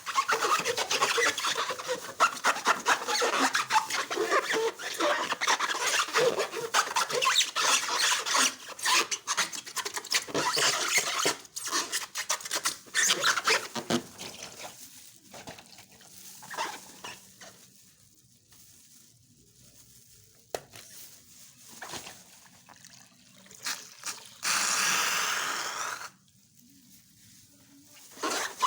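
Slime being squished and stirred: dense crackling and clicking for the first eleven seconds or so, then thinning to scattered clicks, with a hiss lasting about a second and a half near the end.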